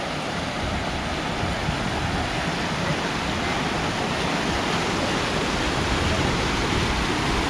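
River water rushing steadily through a small rapid below a concrete ledge, a continuous white-water noise that grows a little louder in the second half.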